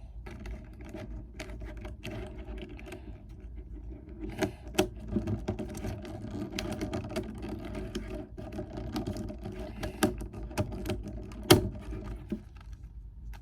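Plastic pieces of a GAN 11M Pro magnetic speedcube clicking and snapping irregularly as the cube is put back together, with one louder knock near the end.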